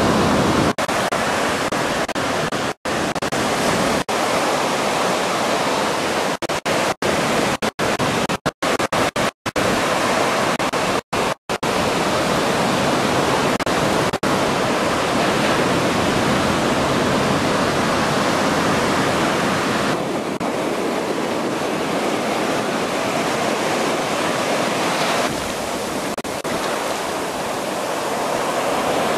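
Steady rushing noise of ocean surf, which cuts out briefly several times in the first half.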